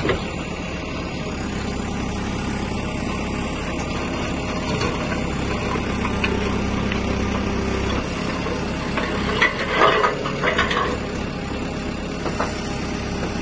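Backhoe loader's diesel engine running steadily, with a cluster of clattering, scraping knocks from the rake attachment about nine to eleven seconds in.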